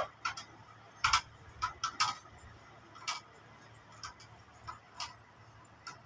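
Irregular light clicks and rustles of hands handling a loose car engine wiring harness, wires and plastic connectors knocking together, about ten times at uneven intervals.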